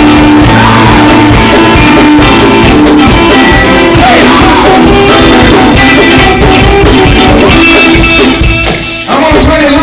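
Loud live church praise music, instruments playing with singing.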